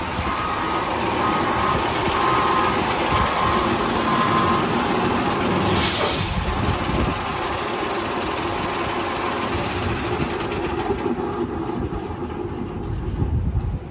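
Fire engine's diesel engine running as it backs in, with its reverse beeper beeping about once a second for the first few seconds. About six seconds in, a short sharp hiss of the air brakes as the rig stops, then the engine idles on.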